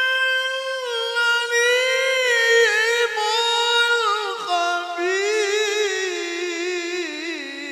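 A male qari's voice in melodic Quran recitation (tilawah), holding one long drawn-out vowel in a high register. About halfway through the pitch drops lower and the voice moves into quick wavering ornamental turns, growing quieter near the end.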